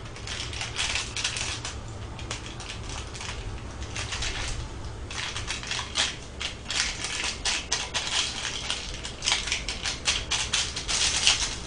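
Plastic seasoning sachets from Nongshim Neoguri ramen crinkling and crackling as they are torn open and shaken out over a pot, an irregular rapid crackle.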